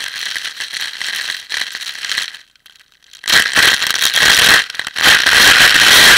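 Water from a garden hose spraying onto a waterproof camera's casing and lens, a noisy spatter. It breaks off for a moment about halfway through, then comes back much louder and keeps going.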